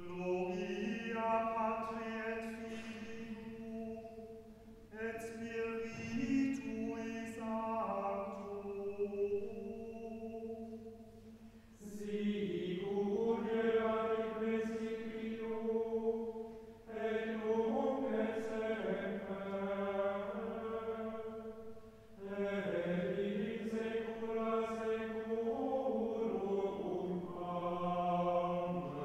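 Background music: slow choral singing in long, held phrases, with short breaks about every five seconds.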